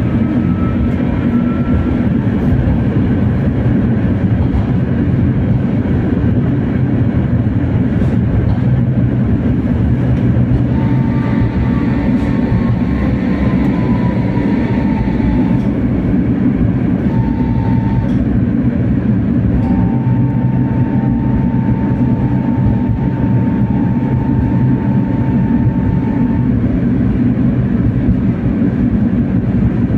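Tatra T3R.PLF tram running along its track with a steady rumble. From about a third of the way in, a faint whine glides down in pitch, then comes back as a steady tone for several seconds.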